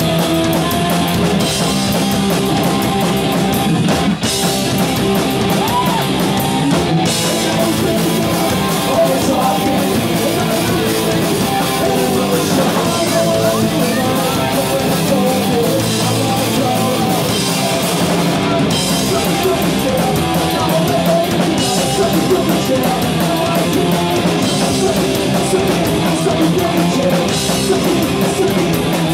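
Punk rock band playing live, loud and without a break: distorted electric guitar, bass guitar and a drum kit with crashing cymbals.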